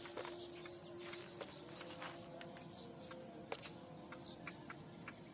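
Faint outdoor ambience of small birds giving short, falling chirps and insects calling, with a few sharp clicks.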